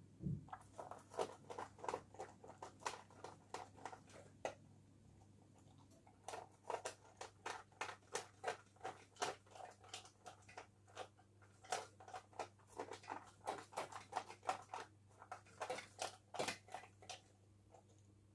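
Labrador eating from a stainless steel bowl: quick crunching chews, about two or three a second, with a short pause about four seconds in.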